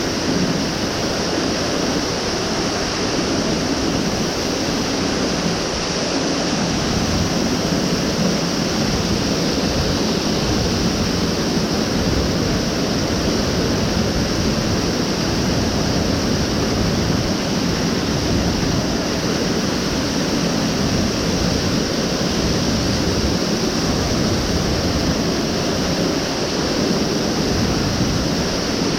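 Mountain stream water rushing steadily and loudly, with no breaks.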